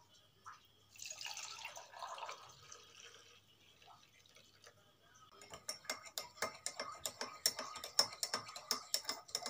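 Milk poured from a metal saucepan into a ceramic mug, splashing for about two seconds. From about halfway through, a metal spoon stirs in the mug, clinking rapidly against its side.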